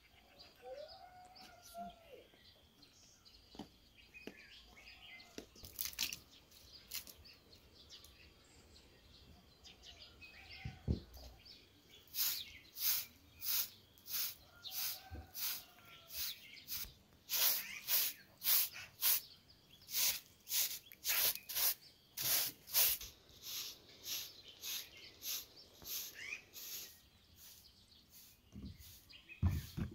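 Short straw hand broom sweeping a hard earthen yard in quick, even strokes, about two a second, starting about twelve seconds in and stopping near the end. Before the sweeping, birds chirp faintly.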